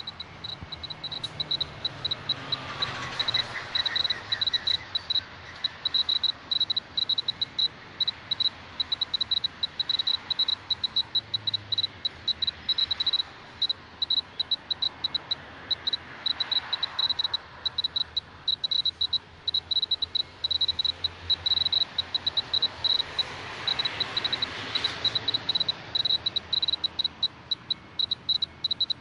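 Clear-Pulse Mr. Gamma A2700 gamma dosimeter's buzzer giving short high-pitched beeps at an irregular rate, several a second, each beep a detected gamma count, at an ordinary background dose rate of about 0.11–0.12 µSv/h. A rushing sound of passing traffic swells and fades three times.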